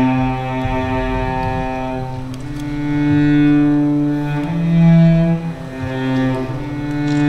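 Slow dance-accompaniment music on a low bowed string instrument: long sustained notes that shift pitch every second or two.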